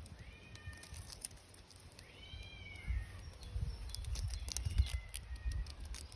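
Cat meowing: two clear, high rising-and-falling meows and a fainter one near the end, over irregular low rumbling noise.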